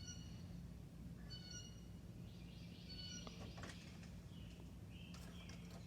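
A small bird giving faint, short, high chirps, one about every second and a half, with a few more calls near the end, over a steady low hum.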